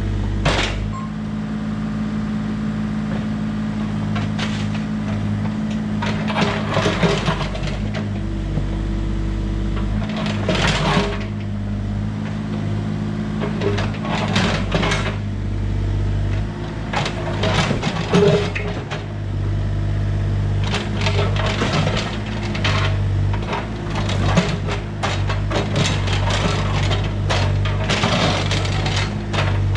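A Bobcat E32 mini excavator's diesel engine runs steadily while its bucket digs into a pile of broken retaining-wall stone. Stones clatter, scrape and knock together again and again.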